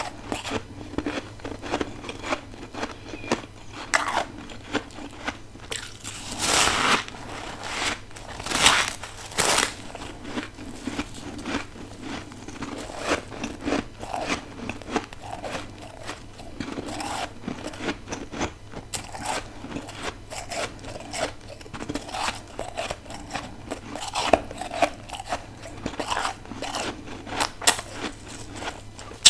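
Close-up crunching and chewing of freezer ice and frost, a steady run of crisp cracks and crunches, with a few louder bites about a third of the way in.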